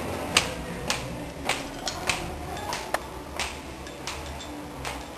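Footsteps on a hard floor: sharp clicking steps about twice a second, over a faint low hum.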